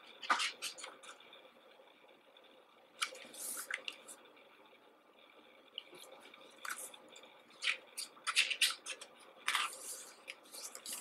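Glossy pages of a CD photo booklet being turned and handled: short paper rustles and flicks, a few spread out and then several in quick succession near the end.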